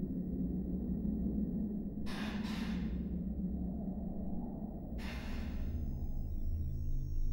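A person breathing: two quick breaths about two seconds in and another about five seconds in, over a steady low drone. Faint music tones come in near the end.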